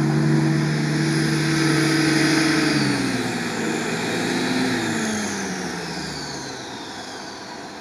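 Off-road vehicle's engine working under load in deep mud: it holds a steady, strained note for about three seconds, then the revs drop, and the sound eases off toward the end with a falling whine.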